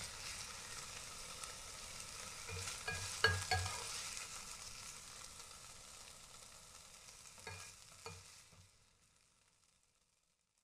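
A spatula scrapes and clicks against a frying pan as a spinach-and-egg omelette is lifted out onto a plate, over a soft sizzle from the pan that dies away as it cools with the heat off. There is a cluster of sharp spatula knocks about three seconds in and two more near the eight-second mark, then everything fades out.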